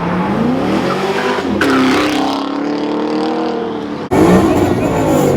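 A car engine revving hard as the car accelerates, its pitch climbing and then holding high. About four seconds in there is a sudden cut to another loud burst of car noise.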